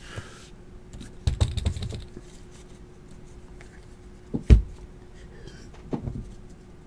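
Trading cards being handled on a tabletop: a brief flurry of card clicks and rustling about a second and a half in, a sharp knock on the table at about four and a half seconds, and a smaller knock about six seconds in, over a faint steady hum.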